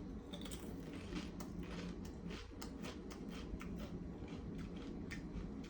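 Someone chewing crunchy Doritos tortilla chips close to the microphone: a steady run of crisp crunches, about three a second.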